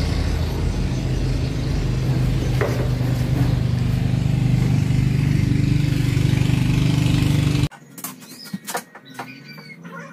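A woodworking power tool's electric motor running steadily, a low even hum, then cutting off abruptly about three-quarters of the way in. Quieter scattered clicks and light taps follow.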